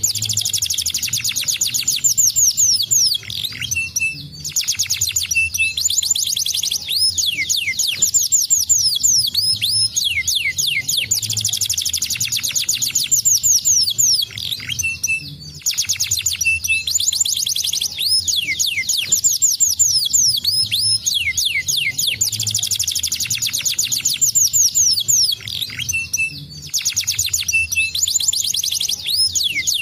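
Domestic canary singing in full song: long, fast trills of rapid, repeated downward-sweeping notes, broken by a few short pauses between phrases.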